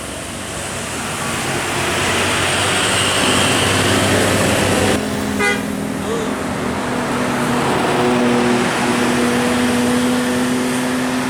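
Tour bus passing with engine and traffic noise; from about halfway its air horn sounds long, steady notes.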